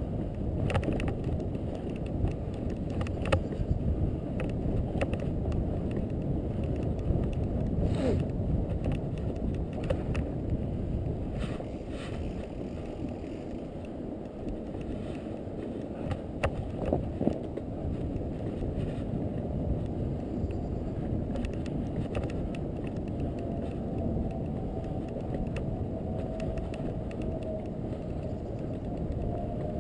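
Fat bike riding through snow: a steady low rumble of the wide tyres and wind buffeting the microphone, with scattered clicks and rattles from the bike.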